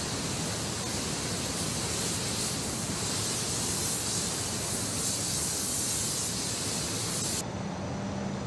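Steady, even hiss of assembly-hall noise with no distinct knocks or tools standing out. About seven seconds in it changes abruptly to a duller hiss with a low steady hum.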